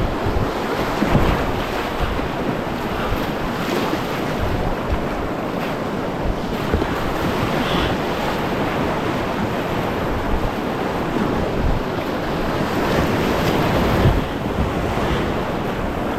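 River water rushing and splashing around a kayak, with wind buffeting the microphone.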